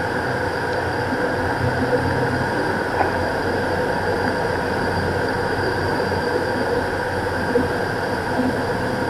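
Steady cockpit drone of a Beechcraft King Air's twin turboprop engines and propellers in cruise-approach power, several fixed tones held over a constant rush of noise.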